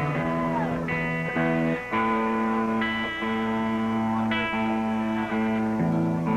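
Amplified electric guitar playing held chords that change about every second, with no drums.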